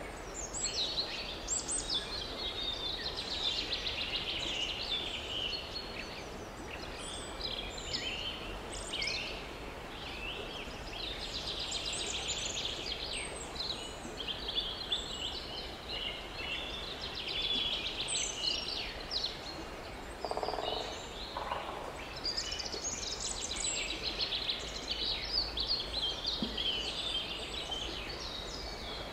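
A continuous chorus of songbirds singing, with many overlapping chirps and trills, over a steady low background hiss. A short, lower-pitched sound comes about two-thirds of the way through.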